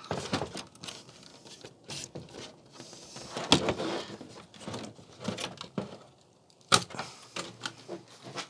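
Hands working on a flat-screen TV's plastic back cover to get it off: irregular clicks, knocks and scrapes of plastic and screws, with the sharpest knock about two-thirds of the way through.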